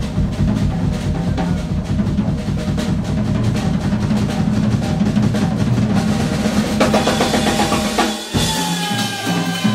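Jazz drum kit solo: fast, dense strokes and rolls across the drums, with cymbals ringing out more strongly over a sparser drum pattern in the last two seconds.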